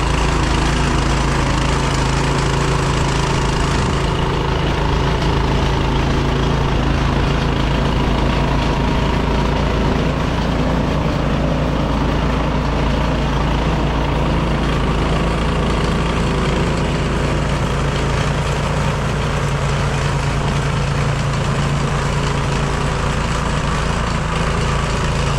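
Craftsman snowblower's engine running steadily under load.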